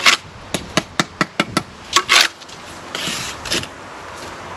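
Steel brick trowel tapping bricks down into the mortar bed: a quick run of sharp taps, then scraping of trowel on brick and mortar about two seconds in, and again around three seconds in.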